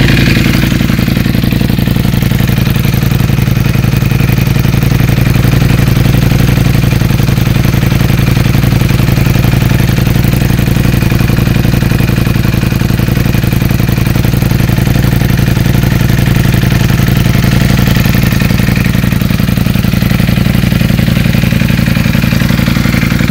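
Ducati Panigale V4 Speciale's 1,103 cc Desmosedici Stradale V4 engine idling steadily, with no revs.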